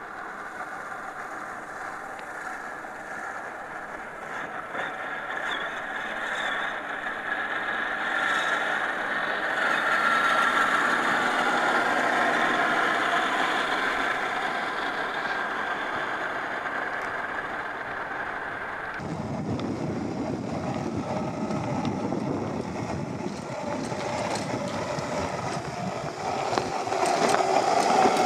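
Brushed 540 electric motor and geared drivetrain of a scale RC crawler running, with a steady whine and tyre-on-terrain noise. The sound gets louder through the first half, then changes abruptly about two-thirds of the way through.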